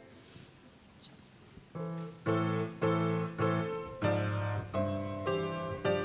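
Keyboard playing the introduction to a hymn: after nearly two seconds of near silence, a steady series of chords begins, struck about every half second.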